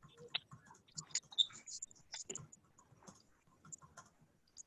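Faint, irregular clicking and tapping in an otherwise quiet room.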